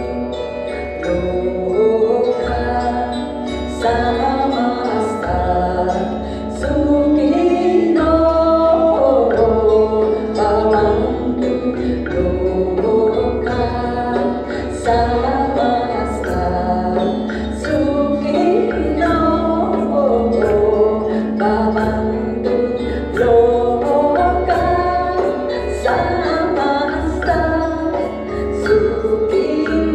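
Live ensemble music: several voices singing a melody together over a steady low drone, with instruments and light percussion strikes accompanying.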